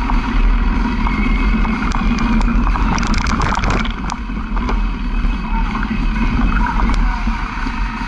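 Motor vehicle driving along a rough dirt track, its engine running with a steady low drone. About three seconds in there is a brief spattering, clattering burst as it crosses wet, puddled ruts.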